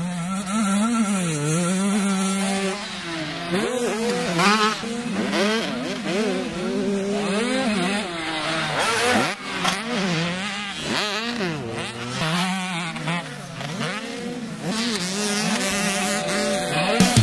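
Motocross dirt bike engines revving on a track, their pitch rising and falling again and again with throttle and gear changes, with more than one bike heard at once.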